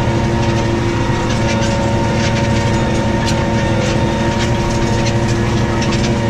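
New Holland T6.155 tractor engine running steadily under load while ploughing, with irregular rattling and clattering over the drone.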